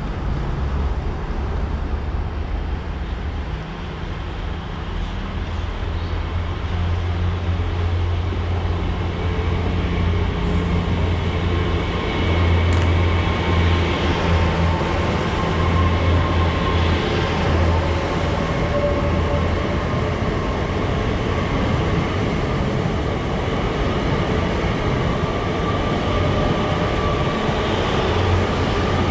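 GWR Class 800 bi-mode train passing close along the platform on its underfloor diesel engines: a steady low engine hum with a thin high whine and wheel noise on top. It grows louder for the first dozen seconds as the coaches come alongside, then holds.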